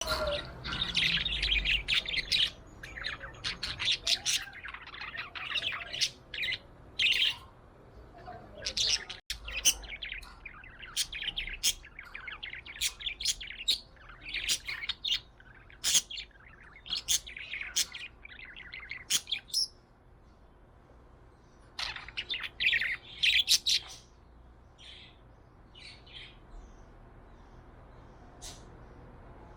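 Budgie (budgerigar) chirping in quick runs of short, high chirps, busy for about the first twenty seconds, then sparser, with a flurry a couple of seconds later.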